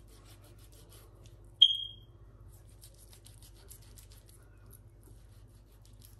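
A single sharp metallic clink about one and a half seconds in: a stainless steel mixing bowl struck by the spoon in it, ringing with a short high tone that dies away in under half a second. Around it, faint soft ticks of chicken pieces being handled in the marinade.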